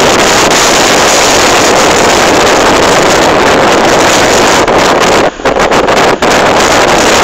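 Blizzard wind buffeting a phone's microphone: a loud, continuous rushing with a brief lull about five seconds in.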